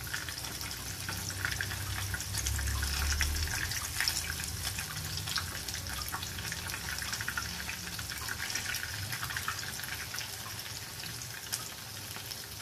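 Breaded potato cutlets shallow-frying in hot oil in a non-stick pan: a steady sizzle with small crackling pops, as a slotted spatula turns them over.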